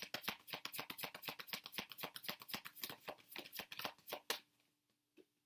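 Tarot deck being shuffled by hand: a fast run of card clicks, about eight a second, that stops about four and a half seconds in.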